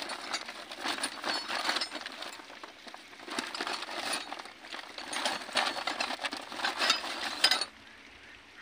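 Metal tools and parts clinking and knocking as they are handled, in a dense run of small clicks that stops suddenly near the end.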